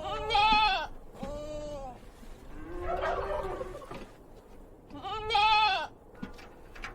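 Goat bleating, about four wavering calls one after another, the third lower and longer than the rest.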